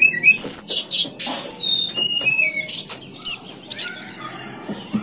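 Birds chirping: quick high chirps and whistled notes, some stepping down in pitch, over a thin steady high tone. Dry grass of a woven nest rustles as it is handled.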